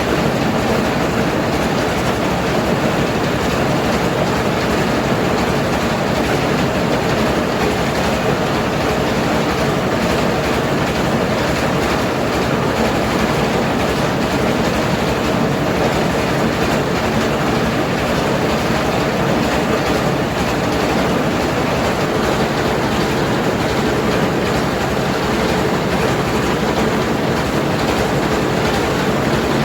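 Mobile rice milling machine running steadily, a loud, unchanging mechanical din.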